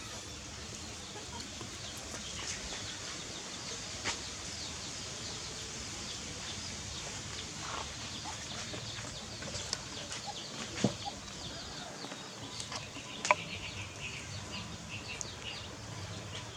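Chickens clucking, with small birds chirping throughout and a few sharp knocks about 4, 11 and 13 seconds in.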